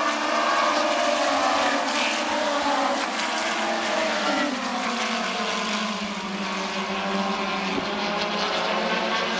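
Several USAC pavement midget race cars running at speed on an oval, their engine notes overlapping and gliding up and down in pitch as they pass and come on and off the throttle.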